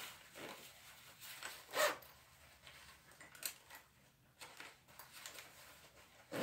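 Scattered rustles and light knocks of small objects being handled and put away, the loudest about two seconds in.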